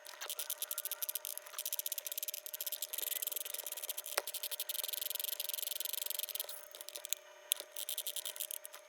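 Sears 'Tradition' electric flip clock with its number leaves clicking over rapidly as the time is wound forward by hand, many clicks a second, over a steady hum from the running clock.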